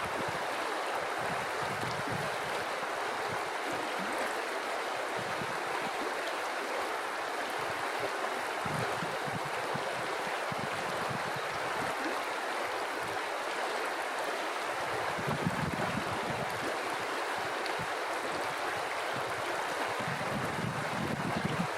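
River water flowing steadily, a continuous even rush of a stream over rocks.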